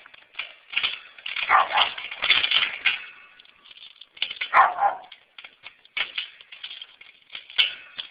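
Dogs barking repeatedly in irregular runs of short barks, with a lull of about a second just after the middle.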